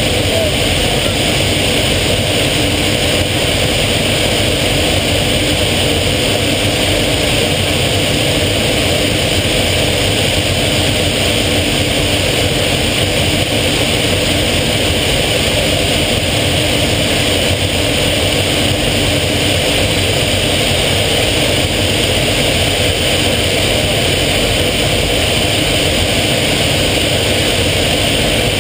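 Steady, loud engine and rushing air noise inside the closed cockpit of a small military-style trainer aircraft in flight, unchanging throughout.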